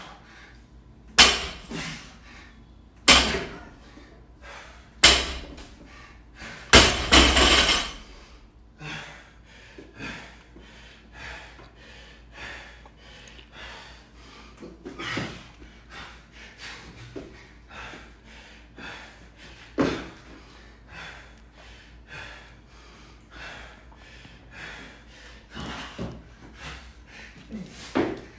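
A loaded barbell with rubber bumper plates set down hard on a rubber floor mat during deadlift reps: four heavy thuds about two seconds apart, the last one longer with a clattering rebound. After that come only scattered softer thuds and knocks.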